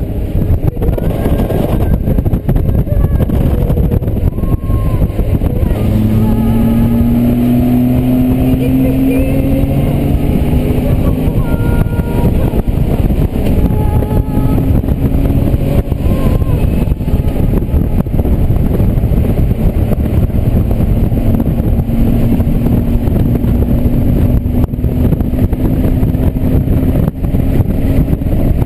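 Honda GL1500 Goldwing's flat-six engine running on the open road under heavy wind rush. Its note climbs slowly as the bike gathers speed, starting about six seconds in and again in the second half.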